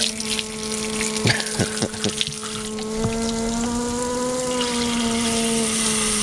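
Pressure washer running with a steady pump hum and hissing water spray as the cylinder head is washed down; the hum rises slightly in pitch about four seconds in. A few sharp knocks sound between one and two seconds in.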